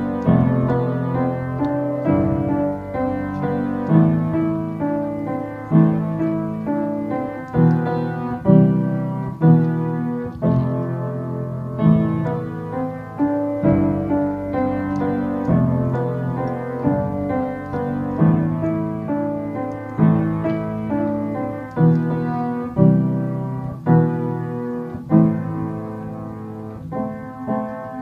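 Solo piano playing a slow tune in chords. Notes are struck about once a second and ring and fade between strikes.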